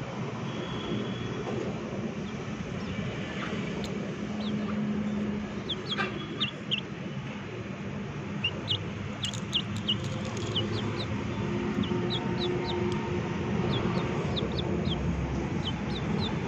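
Chickens pecking rice from a steel bowl, with a few sharp clicks, over a steady background rumble. Many short, high, falling bird chirps come from about six seconds in.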